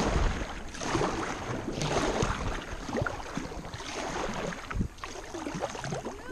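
Double-bladed kayak paddle dipping into pond water, with splashing and dripping from the blade, in strokes about once a second.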